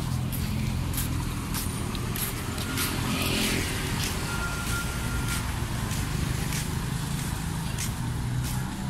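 Road traffic: a steady hum of car engines passing on a busy city street, with scattered light clicks.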